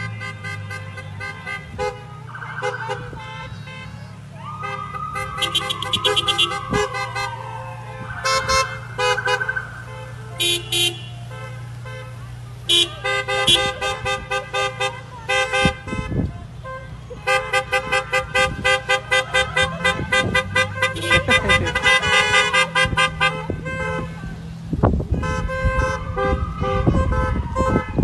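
A procession of passing cars honking their horns, many short toots in quick runs, with a siren sweeping up and down now and then over the steady rumble of the engines.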